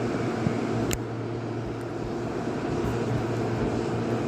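A steady low motor drone with one sharp click about a second in.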